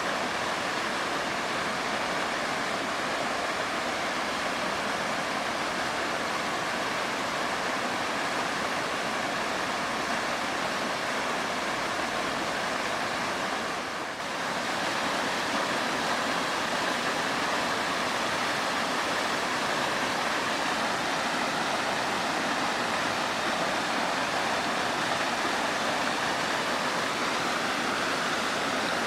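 Waterfall pouring steadily onto rock, a constant rushing roar of falling water. There is a brief dip in the sound about halfway through.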